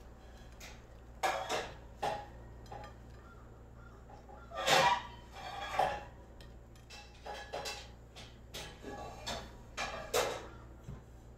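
Fried bacon rashers and sausages being laid by hand on a ceramic plate: irregular light taps and short scrapes of food and fingers against the plate, the loudest a longer scrape about five seconds in.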